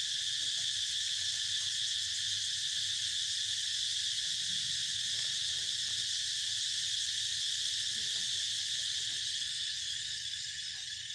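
Steady insect chorus: a continuous high-pitched drone that dips slightly in level near the end, with faint soft ticks underneath.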